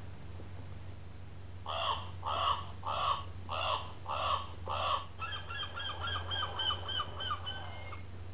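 Electronic children's sound book playing recorded animal calls through its small speaker: six evenly spaced squawking calls, then a fast warbling run of short notes for about three seconds.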